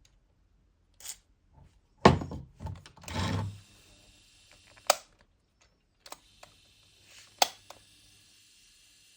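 Knocks, thunks and sharp clicks of hard plastic stand-fan parts being handled while the back of the fan is taken apart, the loudest knock about two seconds in. A faint steady hiss and hum comes in about three seconds in.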